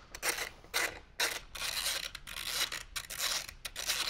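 Hand ratchet clicking in a run of short strokes, about two a second, as it turns out a 3/8 Allen head bolt on a motorcycle fairing's speaker pod.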